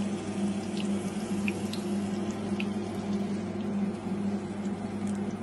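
Garlic cloves frying gently in a shallow layer of oil in a frying pan: a few small, scattered sizzling pops over a steady low hum.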